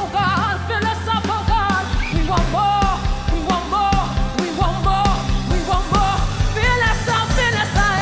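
Live gospel worship music: a woman's lead vocal belting long, bending, sustained notes over a low bass line and a steady drum beat.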